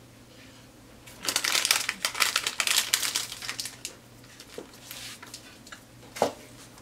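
Crinkling and crackling of a packaging wrapper, loud and dense for about two seconds, thinning to scattered rustles. Near the end comes a single knock.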